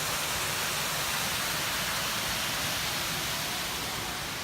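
Surf washing against a rocky shore: a steady, even rushing hiss that eases slightly near the end.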